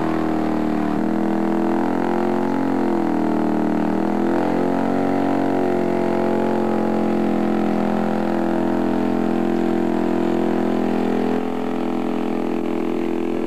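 Weedhopper ultralight's small two-stroke engine and propeller running just after being started. The engine speed rises and dips a few times over the first few seconds, then holds steady.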